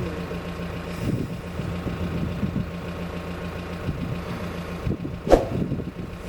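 An engine idling with a steady low hum, and one sharp knock about five seconds in.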